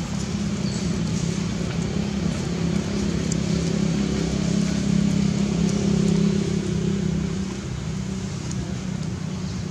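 A steady low engine hum, like a motor vehicle running, that grows louder in the middle and eases off a little near the end.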